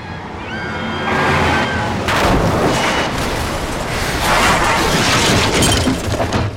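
Violent car crash: two cars colliding with heavy crunching impacts of metal and breaking glass, and debris clattering. High sliding squeals come first; the loud crash starts about two seconds in, surges again a couple of seconds later and cuts off sharply near the end.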